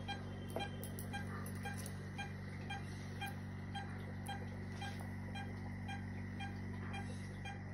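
Veterinary patient monitor beeping steadily in time with the anaesthetised dog's pulse, about two short beeps a second, over the steady low hum of the surgical equipment.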